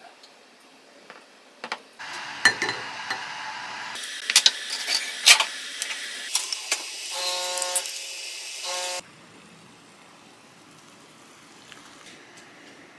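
Kitchen sounds of making loose-leaf tea: sharp clinks and taps of a wooden spoon against ceramic and glass over a steady hiss. A short pitched buzz comes twice near the end, and then it all cuts off suddenly.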